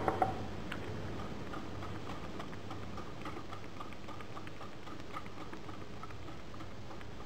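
Wire balloon whisk stirring coconut into a thick cake batter, its tines ticking lightly against the side of the bowl about two or three times a second.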